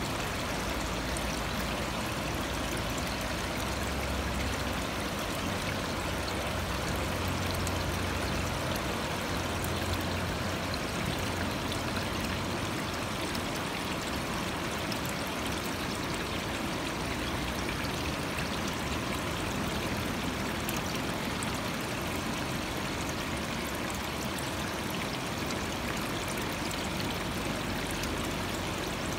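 Water running steadily, an even rushing splash with no breaks, as from an inflow or aeration splashing into a goldfish tank. A faint low rumble sits under it between about four and twelve seconds in.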